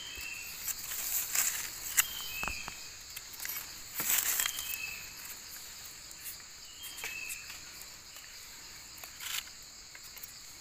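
Night forest insects such as crickets trilling steadily, with a short chirp that steps down in pitch every two or three seconds. A few brief rustles and taps in the leaf litter, the loudest about four seconds in.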